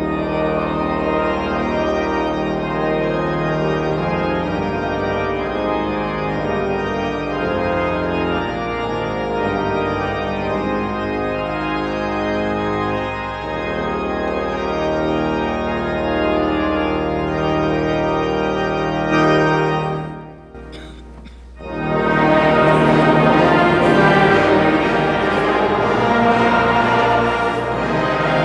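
Organ music: a pipe organ playing sustained chords. About twenty seconds in it breaks off briefly, then louder, fuller music starts.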